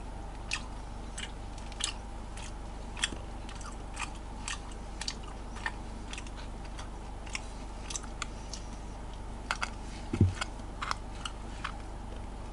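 Small, irregular clicks and taps from fingers handling a plastic edible gel pen and candy pieces, with one louder knock about ten seconds in, over a steady low hiss.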